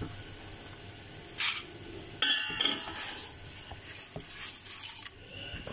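Water boiling in a steel pot, then about two seconds in soaked rice is tipped into the boiling water with a rush and a clatter against the pot.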